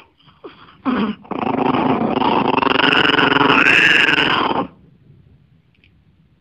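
Small Maltese dog growling while a hand handles her face and leg: two short growls, then one long growl that stops abruptly a little before the end. It is an aggressive warning at being touched.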